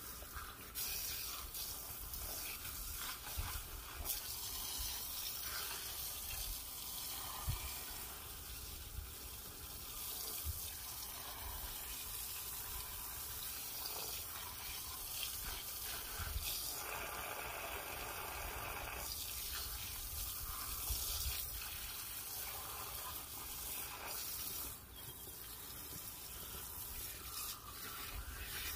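Water from a garden hose running and splashing against a truck tyre and wheel as the suds are rinsed off.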